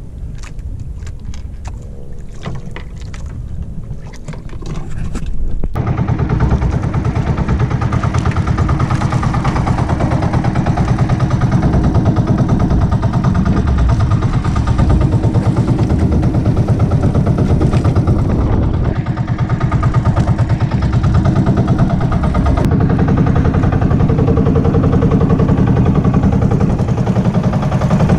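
Outrigger fishing boat's engine running steadily, with a fast even firing rhythm; it comes in suddenly about six seconds in, after a quieter stretch with a few clicks.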